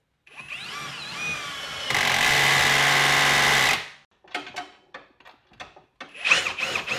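Ryobi drill driving a 9/16-inch lag bolt through a socket adapter and extensions: it spins up with a rising whine, runs steadily under load for about two seconds, then gives a string of short trigger bursts, and runs again near the end.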